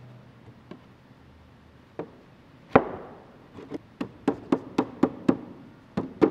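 Rubber mallet knocking on the edge of a rough-sawn wooden barn door rail, driving the rail and slats' tongue-and-groove joints snug. A couple of single knocks come first, then a quick run of about eight knocks at roughly four a second, and two more near the end.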